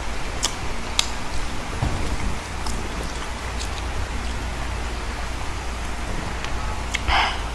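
Eating fried chicken by hand: a few sharp crunching and smacking clicks scattered through, with a louder crackling crunch near the end, over a steady hiss.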